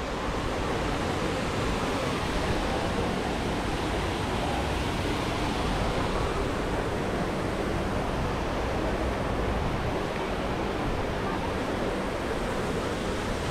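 Steady rush of water cascading over the rocks of the Trevi Fountain into its pool.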